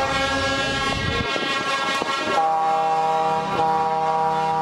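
Truck air horns sounding one long held chord. The chord changes to a fuller, stronger set of notes about halfway through and shifts again shortly before the end.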